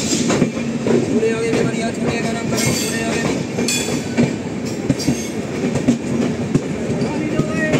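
Two passenger trains running side by side, heard from an open window of one of them: a continuous rail rumble with the clickety-clack of wheels over rail joints as the Shatabdi Express coaches pass close alongside.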